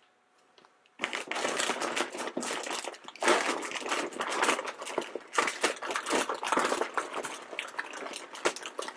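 Plastic blind-bag packets crinkling and rustling continuously as a hand rummages through a bin full of them, starting about a second in.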